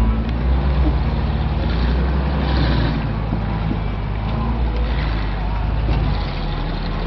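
Off-road 4x4 vehicle's engine running steadily at low revs, with a little tyre and trail noise above it.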